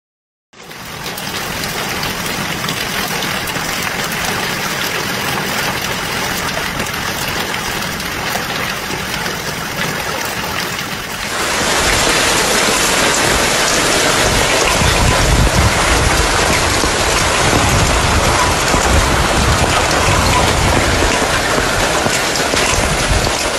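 Heavy rain mixed with hail pouring down in a steady hiss that starts abruptly. About 11 seconds in it turns louder, with strong low gusts of wind.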